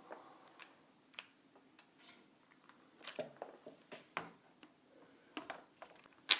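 Faint scattered clicks and ticks of a small screwdriver turning out a screw from a laptop's plastic screen bezel, with a sharper click near the end.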